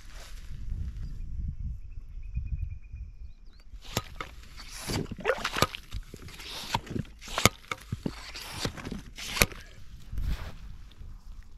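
Stainless-steel yabby pump worked in wet tidal sand: about four seconds in, a run of wet sucking and squelching strokes with sharp clicks as it is plunged, drawn up and emptied. A low rumble comes before it.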